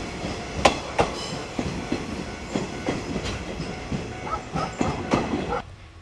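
Wheels of a departing train, hauled by an EF58 electric locomotive, clattering over rail joints: an irregular run of sharp knocks over a steady rumble, with a few brief squeals near the end. The clatter cuts off abruptly just before the end, leaving a quieter low hum.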